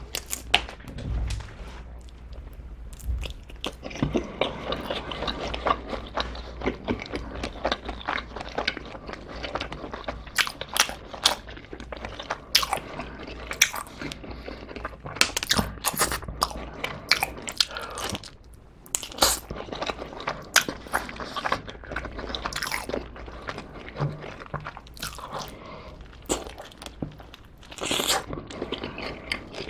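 Close-miked eating of a seed-topped pizza slice and its thick crust: repeated crunchy bites and steady chewing, with sharp crunches scattered throughout.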